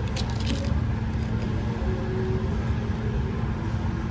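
Steady low rumble of restaurant background noise, with a few brief clicks of a knife and fork against the plate near the start.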